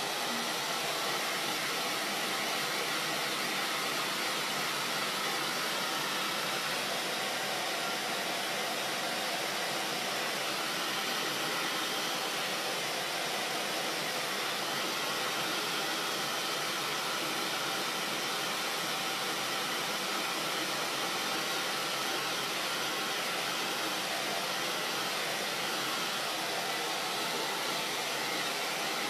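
Blow dryer running steadily, blowing on a canvas to dry thick wet paint.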